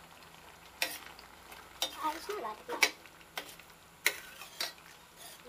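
A metal ladle stirring a thick pork blood stew in a stainless steel pot, clinking sharply against the pot several times over a low simmering hiss.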